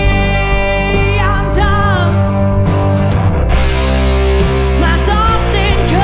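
Rock song with guitars, bass and drums and a sung melody line bending in pitch over the band.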